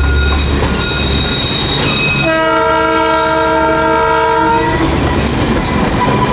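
Darjeeling Himalayan Railway narrow-gauge toy train running, with one steady signal blast lasting about two and a half seconds a couple of seconds in, over the rumble and clatter of the carriages.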